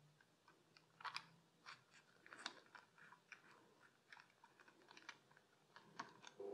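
Faint, scattered clicks and light taps of small metal parts being handled as an oil level sensor is fitted onto an engine oil pump housing, the loudest about a second in and again about two and a half seconds in.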